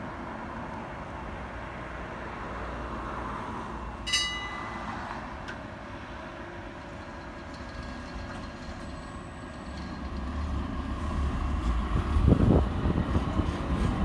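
Rail vehicle running on the track, a steady low rumble that grows louder from about ten seconds in, with a brief ringing tone about four seconds in.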